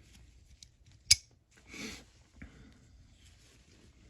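Small steel ratchet parts being handled during reassembly: one sharp metallic click about a second in, then a brief soft scraping rustle.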